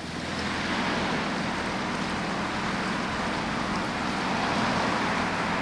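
Microplus 600 cabin cruiser's engine running steadily under way, a low hum with an even hiss over it.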